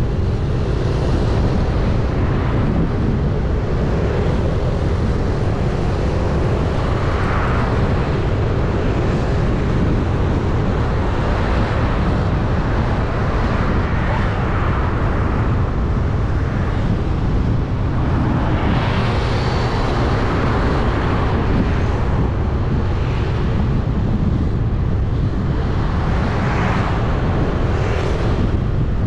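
Steady wind rumble on the microphone and road noise from a vehicle travelling along a city street. The hiss of passing traffic swells up several times.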